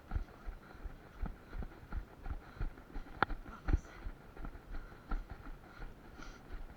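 Running footsteps on the ground, about three steps a second, with one sharp click about three seconds in.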